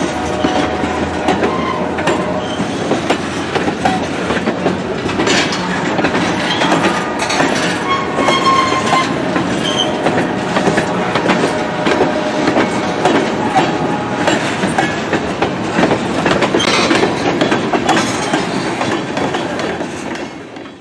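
Train rolling along the rails: steel wheels clicking over rail joints, with a few short wheel squeals partway through. The sound cuts off abruptly at the end.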